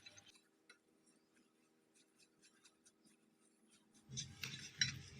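Near silence, then from about four seconds in faint scraping and a few light clicks of a utensil against a mixing bowl as cake batter ingredients are mixed.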